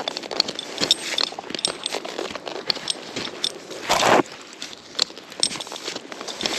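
Metal climbing gear clinking and jangling, with scrapes and rustles as it is handled, and one louder rustle about four seconds in.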